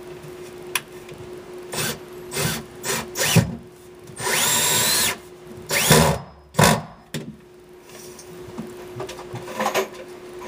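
Power drill driving SPAX wood screws through a Sundown Z15 subwoofer's mounting flange into the wooden enclosure: four short bursts, then one longer run of about a second whose whine rises and then holds, then two more short bursts.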